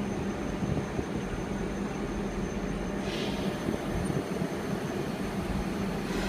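CNC milling machine running steadily while it mills the ribs into a rebar mill roll, with a constant low hum and a brief hiss about three seconds in.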